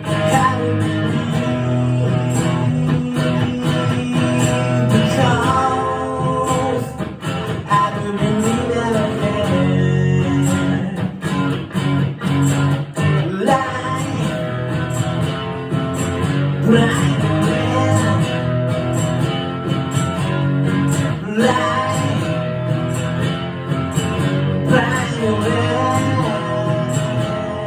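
A singer performing a song live while strumming a guitar, the voice rising and falling over steady strummed chords.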